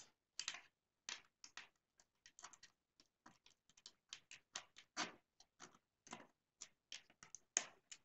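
Faint, irregular small clicks and ticks, a few a second, of hard plastic on plastic: 3D-printed connector screws being turned by thumbnail into a 3D-printed wheel bracket.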